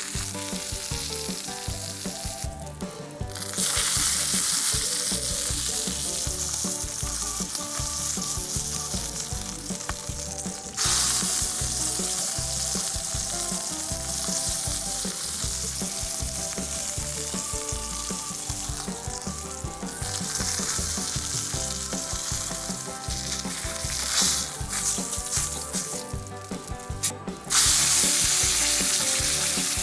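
Steak sizzling hard in a cast iron skillet with a little oil, heated to about 500 degrees for searing. The sizzle is dense and steady, and it cuts out and surges back sharply a few times.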